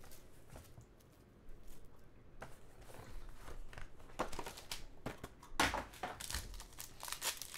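Cardboard trading-card box being opened and a foil-wrapped card pack pulled out, with crinkling foil and rustling card starting about two seconds in. The crinkling is loudest near three-quarters of the way through.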